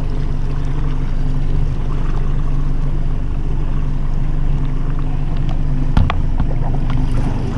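Small outboard motor running steadily at low trolling speed, a constant low hum under wind and water noise. A single sharp knock about six seconds in.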